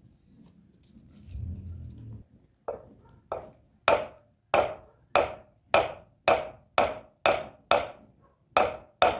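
Wooden handle being hammered into the hole of a stone hand quern's upper millstone: about a dozen sharp, ringing knocks, roughly two a second, starting a few seconds in after a brief low rumble.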